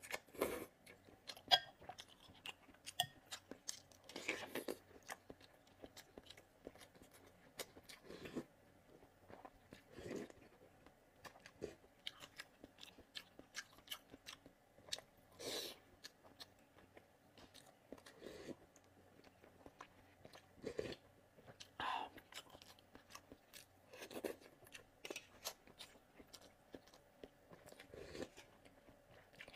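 Close-miked eating: slurping glass noodles out of a spicy broth and chewing, with irregular wet mouth clicks and smacks every second or two, and a sip of broth from a spoon near the end.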